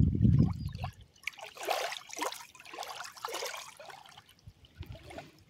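Small waves lapping on a sandy lake shore: a run of soft washes and splashes one after another, fading near the end. It opens with about a second of low wind rumble on the microphone.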